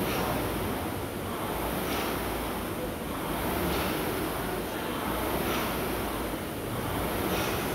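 Concept2 air rowing machine worked at a hard pace: the fan flywheel whooshes up with each pull and fades on the recovery, about five strokes, one roughly every two seconds.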